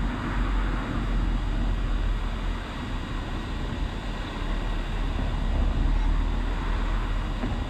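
Camera drone in flight, its propellers and motors heard through the onboard microphone: a steady hiss over a fluctuating low rumble, with a faint steady whine.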